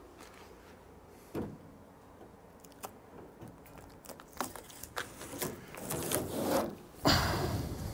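A cut-out piece of a Sprinter van's sheet-steel side panel being knocked loose and worked out of its opening: a single knock, then scattered clicks and scrapes of metal, ending in a louder scraping rush as the panel comes free.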